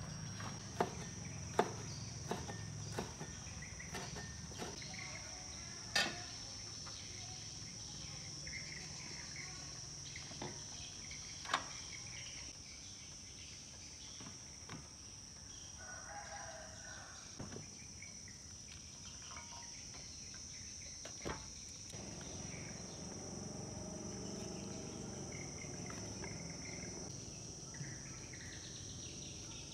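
Insects droning steadily at a high pitch, with scattered sharp clicks and knocks of kitchen utensils and cookware, most of them in the first few seconds.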